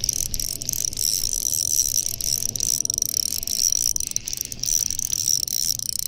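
A steady, high-pitched insect-like chirring runs without a break, over a low steady hum.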